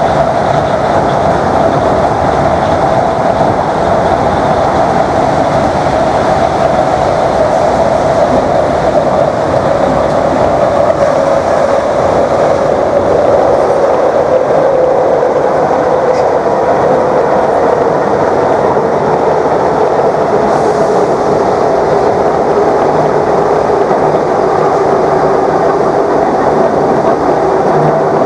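Class 321 electric multiple unit's traction motors whining loudly over heavy running noise, the whine falling slowly in pitch as the train slows.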